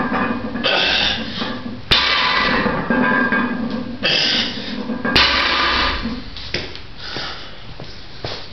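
Heavy 415 lb loaded hex bar set down on the matted floor twice during hex bar deadlift reps, about two seconds in and again about five seconds in. Each set-down is a sharp clank of the plates followed by a brief rattle.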